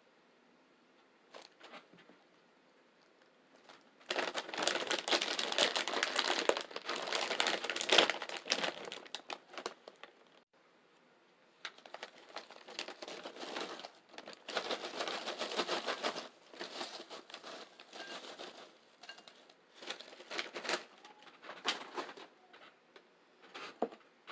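Crisp crackling and crunching of chips being eaten close to the microphone, in two long dense stretches with a short pause between, then scattered single crunches.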